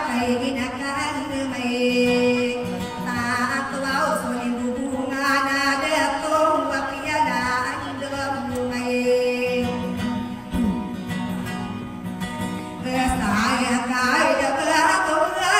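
A woman singing long, wavering, ornamented notes to an acoustic guitar played along.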